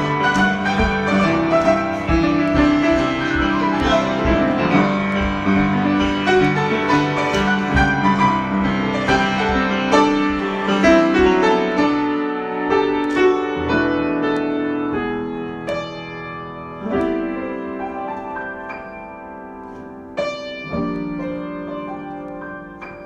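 Solo piano improvisation: full, sustained chords for the first half, then thinning to separate chords and single notes left to ring, growing steadily quieter toward the end.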